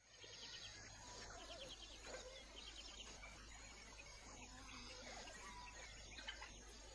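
Faint natural bush ambience: scattered bird calls and chirping insects over a low steady hum.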